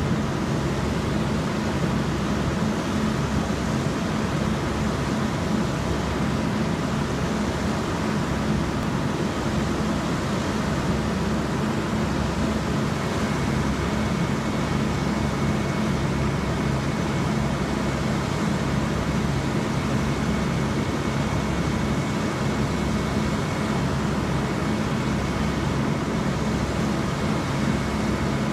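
A steady mechanical drone with a constant low hum under an even rush of noise. A faint high whine joins about halfway through.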